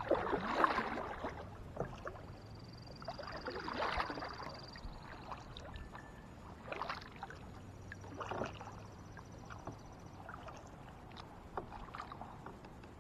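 Kayak paddle strokes in calm lake water: the blade dipping and splashing about five times, a few seconds apart.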